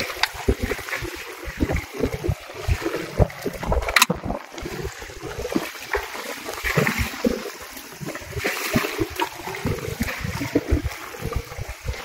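Small waves slapping and splashing against the hull of an inflatable boat in a light chop, an irregular run of low thumps and splashes. A single sharp click sounds about four seconds in.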